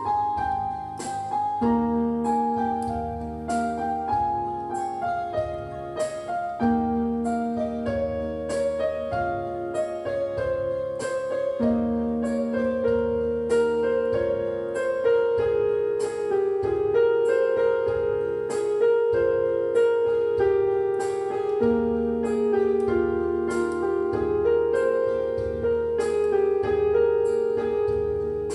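Background piano music: a gentle melody over repeating chords.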